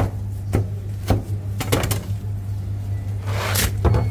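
Kitchen work clatter: about half a dozen sharp knocks and taps, with a brief scraping rush about three and a half seconds in, over a steady low hum.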